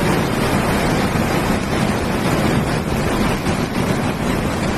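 Loud, steady rushing of a muddy flash-flood torrent, a river in spate tearing past.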